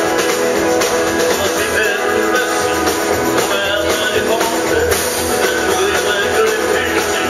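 Live country band playing with a steady beat: strummed acoustic guitars, electric guitar and drums.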